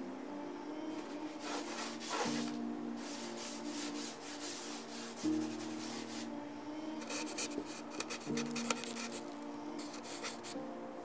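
Hand rubbing and smudging charcoal on paper, in repeated dry scraping strokes. Soft background music of long held chords that change every few seconds runs underneath.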